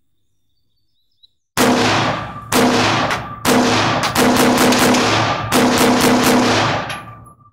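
AR-15 rifle firing about five shots roughly a second apart with its stock folded, each round cycling through the Dead Foot Arms Modified Cycle System. The recording is badly distorted from a gunfire-damaged microphone, so each report comes out as a long, harsh, buzzing blast instead of a short crack.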